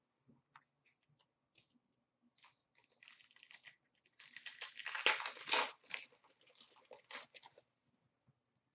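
Foil wrapper of a 2017-18 Upper Deck Series 1 hockey card pack being torn open and crinkled: a few small clicks, then a run of rips from about two and a half seconds in, loudest around five seconds, tailing off into lighter rustles.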